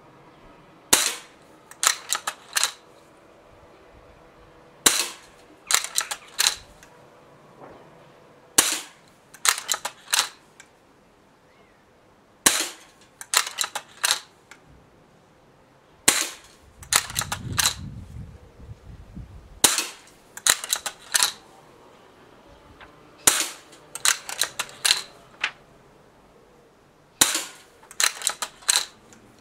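Gamo Expomatic 2000 break-barrel spring-piston air rifle fired about eight times, roughly every four seconds. Between shots comes a quick run of metallic clicks as the barrel is broken to cock it, the repeating mechanism feeds the next ball from the tube magazine, and the barrel is snapped shut.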